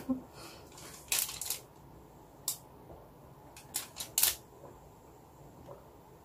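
A green plastic drinking bottle being lifted and drunk from: a brief rustle about a second in, a single click, then a quick cluster of short clicks and gulps as the drinking begins.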